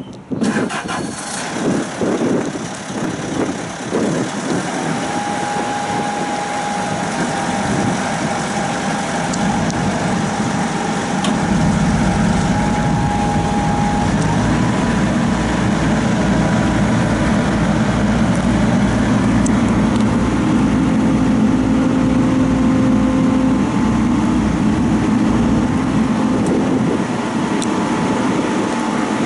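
CAT diesel engine of a CAT Challenger SP115B self-propelled swather starting up with some uneven knocking, then settling into a steady run. About twelve seconds in it speeds up into a fuller, evenly pulsing run as the swather moves off, with a thin steady whine over it.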